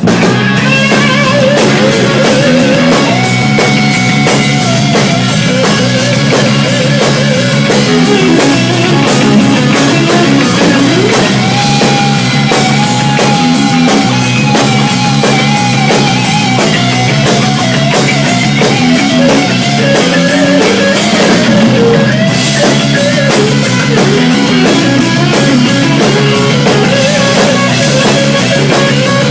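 Live hard-rock band playing: electric guitar lead with held and bending notes and slides over bass and a drum kit keeping a steady driving beat.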